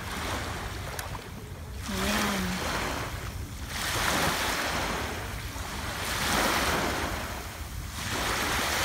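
Small waves washing up on a sandy beach, the hiss swelling and fading four times about every two seconds, over a steady low rumble.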